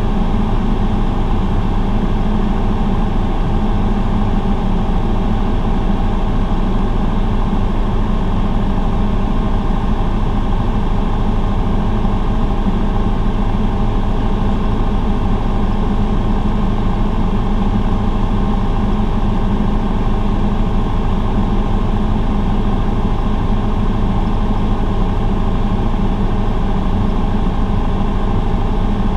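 Cessna 172's piston engine and propeller running steadily in flight, heard as an unbroken drone inside the cockpit.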